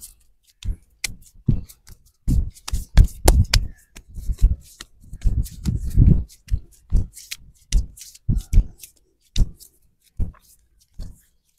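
Hands working bare skin during an arm massage: a quick, irregular run of short slaps, pats and rubbing strokes, busiest in the middle.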